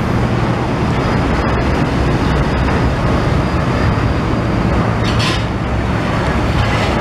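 Diesel engine of a FAW tractor-trailer truck driving slowly past, a steady low drone. A short hiss comes about five seconds in.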